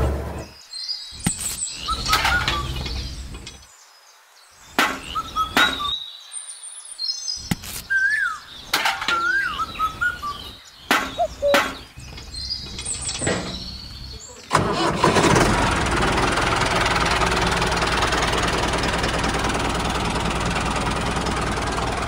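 Scattered clicks and knocks with a few short chirps, then, about fifteen seconds in, a small engine starts up abruptly and keeps running steadily.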